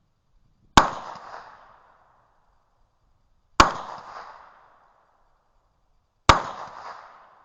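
Three single shots from a 10mm Magnum Research 1911 pistol, fired slowly about two and a half seconds apart, each a sharp crack followed by an echo that dies away over about a second.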